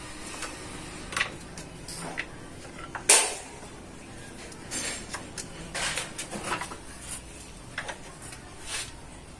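Scattered knocks, clicks and clatter of tools and objects being handled on a workbench, with one sharp knock about three seconds in.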